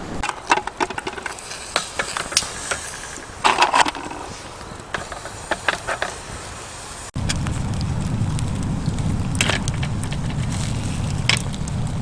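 A wood campfire burning with irregular crackles and pops. About seven seconds in the sound changes abruptly, and a steady low rumble runs under further crackles.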